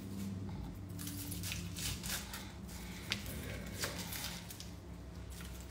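Peeling and cutting an onion with a knife: soft rustling and a few short sharp taps over a low steady hum.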